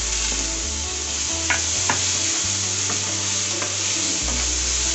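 Chopped onions sizzling in hot oil in a frying pan as they are stirred with a wooden spatula, a steady frying hiss with a couple of light spatula taps about a second and a half in.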